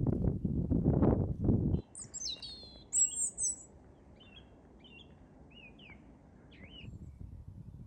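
Small birds chirping in short, quick high calls, loudest between about two and three and a half seconds in, then fainter scattered chirps. Before them, a loud low noise cuts off suddenly about two seconds in.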